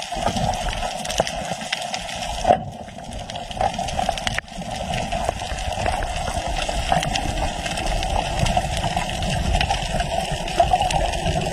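Underwater ambience recorded by a camera below the surface: a steady rush of water with many small clicks and crackles. The level drops briefly about two and a half seconds in, then returns abruptly.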